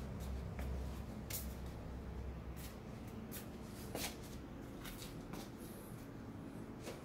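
Quiet, irregular soft scuffs and light clicks from footsteps on a concrete floor and the handling of a phone while walking. A low rumble underneath fades out about two seconds in.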